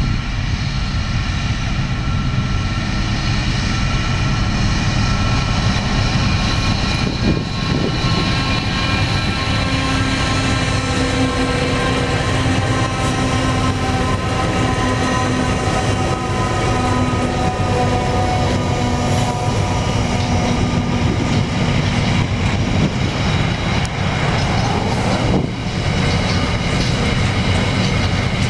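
NR class diesel-electric locomotives (GE Cv40-9i) running past at close range with a loud, steady engine drone and rumble, followed by steel-coil wagons rolling by with wheel clatter on the rails.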